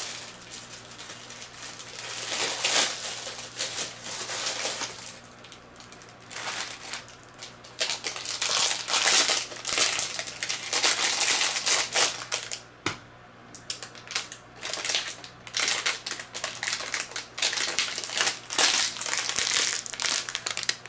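Clear plastic packaging bags crinkling and rustling as they are handled, in irregular bursts that grow louder over the second half.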